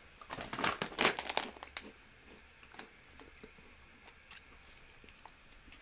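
Crinkly chip bag rustling and crackling as it is handled, for about the first two seconds, then near quiet with a few faint clicks.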